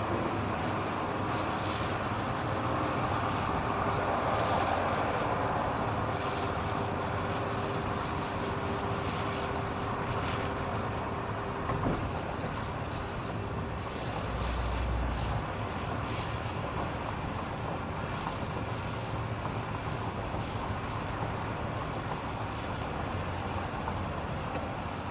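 A pack of cruiser motorcycles riding at highway speed, a steady engine drone mixed with wind and road noise, with one short knock about halfway through.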